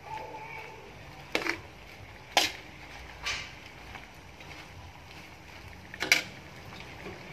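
A slotted spatula scraping and knocking against a wok while stir-frying squid: four sharp strokes, the second and fourth the loudest.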